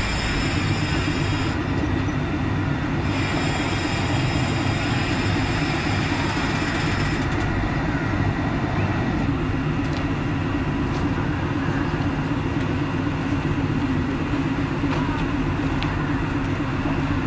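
Diesel railcar's engine running as it draws slowly into a terminus and stands, a steady low drone throughout. A thin high squeal comes in two stretches over the first seven seconds.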